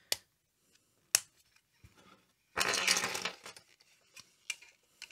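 Hard plastic Playmobil toy parts, a bunk-bed frame and its grille, clicking together as they are snapped into place, with a short rough scrape of plastic on plastic midway. There are a few single sharp clicks.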